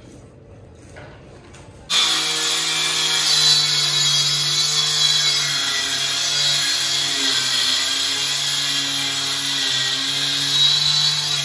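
A small handheld electric circular saw on a wooden base plate starts suddenly about two seconds in. It then runs steadily as it cuts through a plywood sheet, its pitch wavering a little under load.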